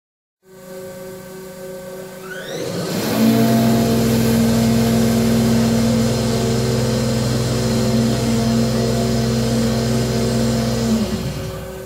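Fuel pump priming the fuel system of a GM 710-series 12-cylinder turbocharged locomotive engine before it is started. A rising whine about two seconds in settles into a loud, steady hum that dies away about a second before the end, over a steady engine-room hum.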